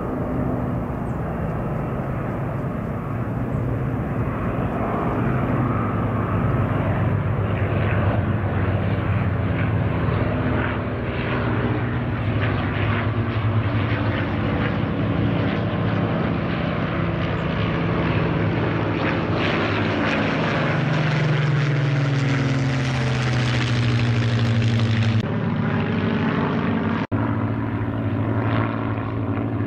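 A formation of Spitfire fighters flying overhead, their V12 piston engines and propellers making a steady, loud, multi-engine drone whose pitch falls as the formation passes over. After a sudden cut, a single Spitfire's engine is heard passing close.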